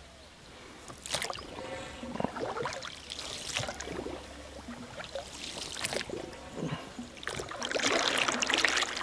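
Oars working an inflatable dinghy through duckweed-covered still water: irregular splashes and drips every second or so, with a short rattling creak about two seconds in and the heaviest splashing near the end.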